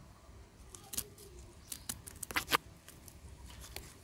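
A small knife snipping through plastic binding tape wrapped around a trunk: a few sharp snaps, with a quick cluster about two and a half seconds in the loudest.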